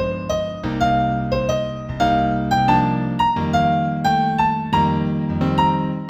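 Instrumental new-age music in B minor on a piano-toned keyboard: a melody of single notes, about three a second, climbing gradually in pitch over held chords in the bass.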